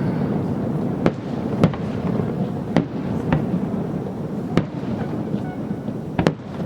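Fireworks display: sharp bangs of shells bursting, about seven at irregular intervals, over a continuous low rumble of further explosions.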